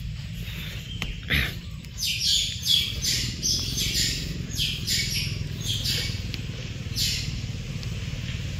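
Small birds chirping, short high calls repeated in quick series from about two seconds in, over a steady low rumble.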